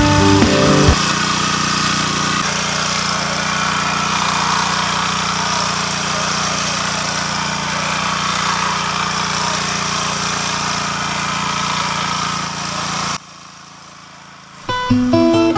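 Small engine of a rotary tiller running steadily, with a constant pitch; it cuts off suddenly near the end. Strummed guitar music plays for the first second and comes in again at the very end.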